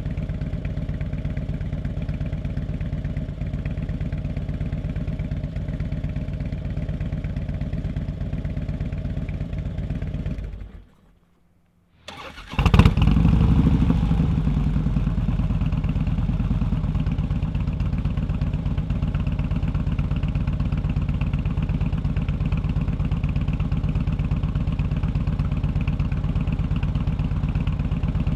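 Harley-Davidson V-twin running through a Bassani Road Rage B4 2-into-1 megaphone exhaust, idling with a steady pulse. About ten seconds in it dies away to near silence. A second or so later it is cranked and fires with a loud burst, then settles back to idle.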